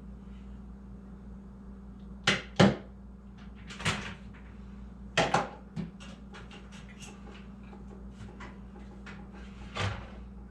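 Knocks and clicks of hands working on a desktop computer's case and parts: a few sharp knocks, then a run of light ticks, over a steady low hum.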